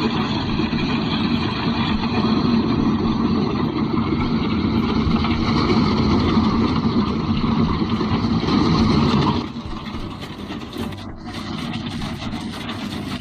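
Heavy diesel-powered machinery running loud and steady. About nine and a half seconds in it cuts abruptly to a quieter engine running.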